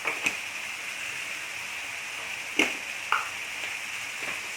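Fish, chicken and peppers sizzling in oil in a frying pan, a steady hiss, with three short sharp knocks of a utensil against the pan.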